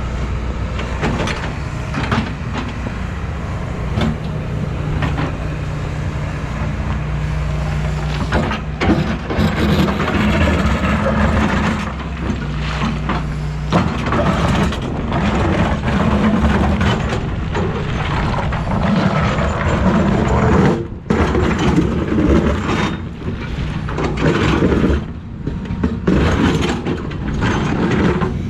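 Excavator's diesel engine running under working load, its note shifting as the hydraulics work, with repeated knocks and scrapes of the bucket digging.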